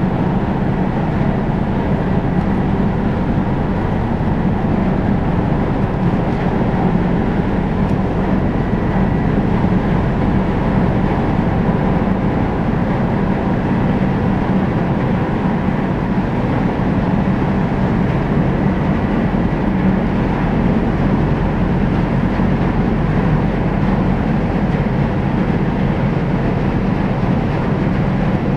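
Car ferry Kuniga's diesel machinery running in a steady low rumble as she gets under way from the quay, with water churning alongside the hull.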